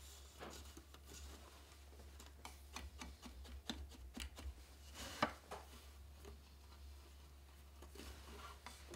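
Faint handling sounds of hand-weaving on a small wooden frame loom: yarn rubbing through the warp threads, with scattered light clicks and taps and one sharper click about five seconds in, over a low steady hum.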